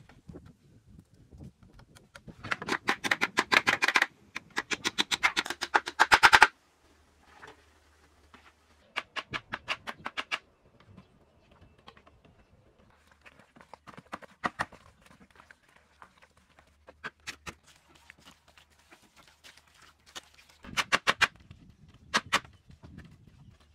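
Runs of rapid, sharp tapping and clicking from bamboo pieces being knocked and fitted during hand building, several clicks a second. The two loudest runs, each about two seconds long, come in the first third, and shorter runs follow.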